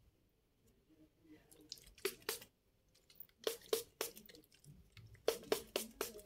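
A plastic body mist spray bottle and its cap being handled: small groups of short soft clicks, a couple about two seconds in, a few more a second and a half later, and a quicker run of four or five near the end.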